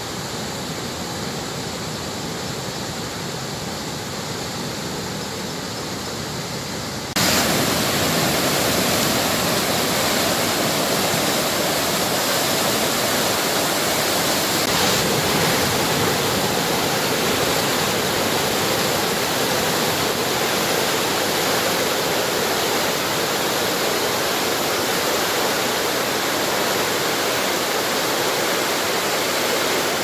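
Floodwater of the swollen Godavari river pouring through a barrage's open spillway gates: a steady, heavy rushing of water that steps up and gets louder about seven seconds in.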